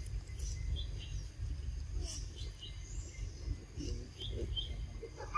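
Outdoor ambience: a steady low rumble with scattered short, high chirps from small birds or insects.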